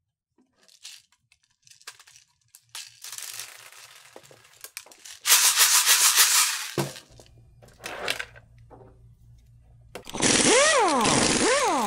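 Plastic airsoft BB speedloader being handled: small clicks and rattles, then a loud rattle of BBs being shaken and spilling onto a wooden table. About ten seconds in, a screwdriver works in the top of a second speedloader, making a loud scraping sound that sweeps up and down in pitch several times.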